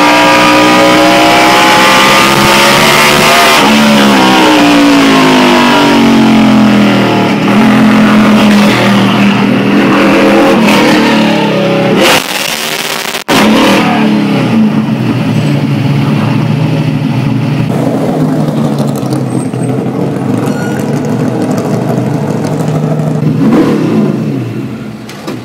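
NASCAR stock car's V8 heard from inside the cockpit, first running hard with its pitch falling as the car slows, then running at low revs along the pit lane. It drops away near the end as the car comes to a stop.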